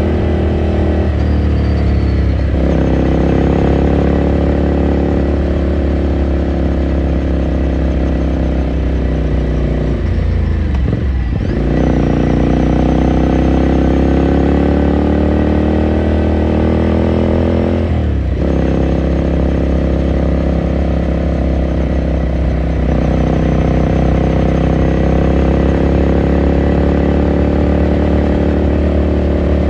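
Ducati Scrambler Sixty2's air-cooled L-twin engine pulling under load on the ride, heard from on board. Its pitch drops and climbs again at several gear changes, most deeply about a third of the way in.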